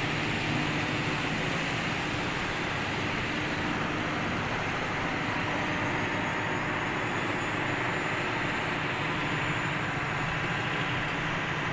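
Steady drone of running machinery: an engine-like hum with a few low steady tones under a dense mechanical noise, unchanging throughout.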